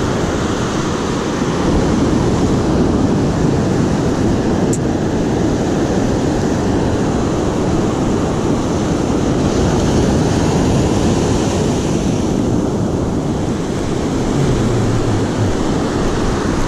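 Steady rush of ocean surf breaking and washing up the beach, with wind blowing across the microphone.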